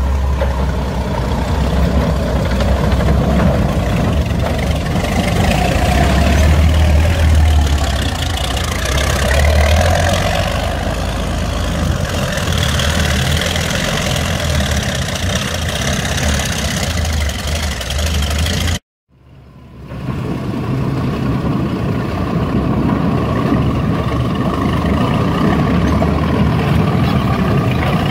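Nashorn tank destroyer driving on its tracks, its engine running with a steady, heavy low rumble. The sound cuts out suddenly for about a second about two-thirds of the way through, then the engine resumes.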